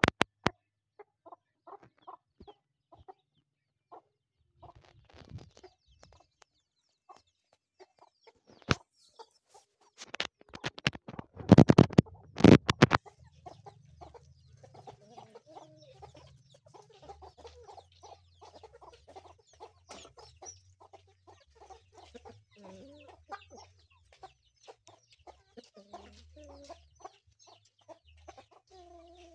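Chickens clucking, with a cluster of loud sharp noises about a dozen seconds in.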